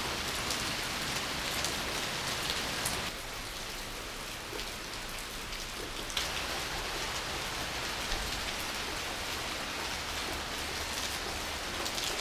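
Steady rain falling, with scattered nearby drops ticking; it is a little quieter between about three and six seconds in.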